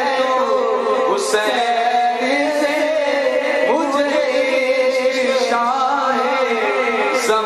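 A male voice sings a naat, an Urdu devotional poem in praise of the Prophet, into a microphone, in a continuous melody with wavering ornaments.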